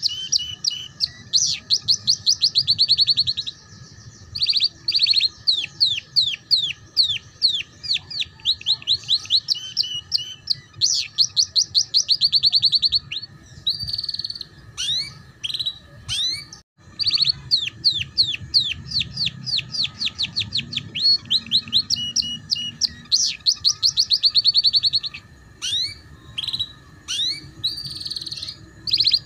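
Yellow domestic canary singing in fast trills: runs of rapidly repeated high notes in phrases a few seconds long, broken by short pauses. It is the rapid 'ngeriwik' trilling song played as a tutor song for young canaries to learn.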